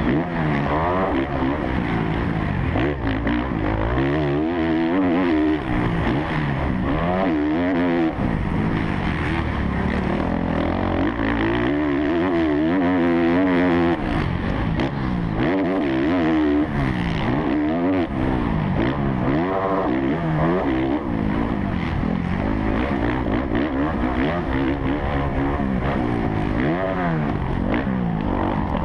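Kawasaki KX450F four-stroke motocross bike racing, heard onboard. The single-cylinder engine revs rise and fall again and again as it accelerates, shifts and backs off.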